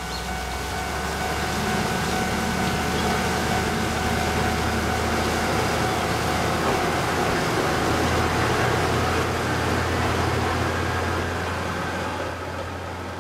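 Kominato Railway KiHa 200 diesel railcar pulling away from the station and running past, its diesel engine working under power. The sound builds for several seconds, then fades near the end as the railcar moves off.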